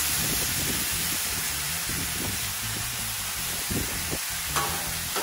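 Sliced russet potatoes sizzling in avocado oil on a hot steel flat-top griddle: a steady hiss that eases slightly. Near the end a metal spatula clicks and scrapes on the griddle as the slices are pushed together.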